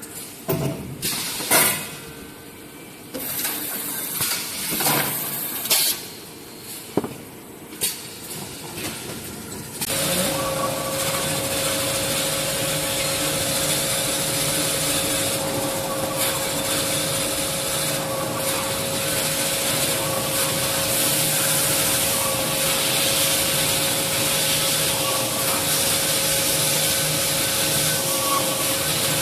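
Scattered machine knocks and clatter, then from about ten seconds in a band-saw log cutter runs steadily with a constant whine as it cuts a tissue paper log into toilet rolls.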